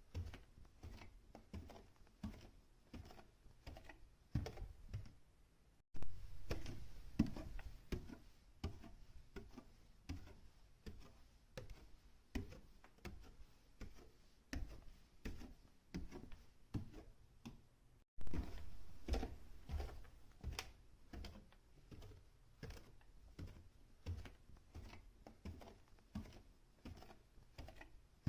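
Footsteps going up or down a staircase, a steady pace of about two steps a second, each step a dull thud with a sharp click. The sound cuts off abruptly and restarts twice, where one take is spliced to the next.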